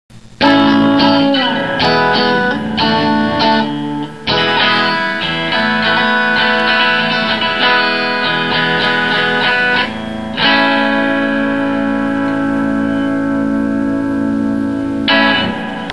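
Stratocaster-style electric guitar strummed: a run of quick chords over the first few seconds, then chords left to ring, struck again about four, ten and fifteen seconds in.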